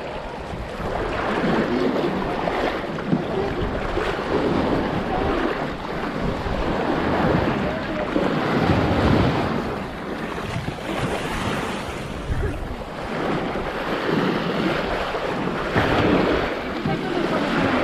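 Small waves washing in and breaking on a sandy shore, the surf swelling and fading every few seconds, with wind buffeting the microphone.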